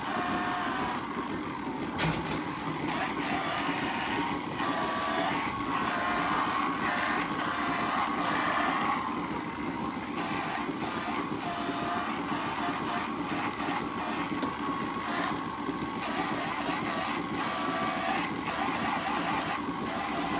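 Whirring of a handheld rotary teat-cleaning brush, its pitch wavering up and down as it is pressed onto the cows' teats, over the steady hum of milking-parlour machinery. A single sharp clack about two seconds in.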